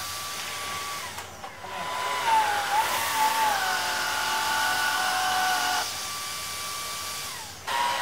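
Electrolux UltimateHome 700 stick vacuum with its PowerPro floor nozzle running on carpet: a steady motor whine over a rush of suction. It drops quieter about a second in, comes back stronger with its pitch wavering a couple of seconds in, then drops quieter again for the last two seconds.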